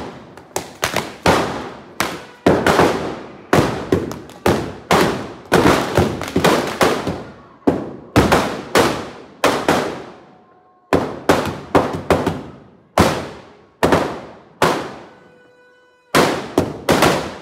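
Firecrackers packed inside a burning Ravan effigy going off in a long, irregular string of loud bangs, each ringing out briefly, with a short lull near the end before a last quick cluster of bangs.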